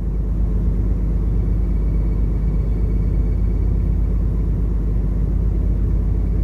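Steady low rumble aboard a large ship under way, unchanging throughout.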